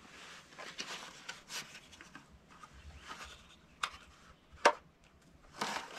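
Hands handling revolvers and a box of cartridges on a wooden rail: rubbing and rustling with scattered small clicks, and one sharp click about three-quarters of the way through.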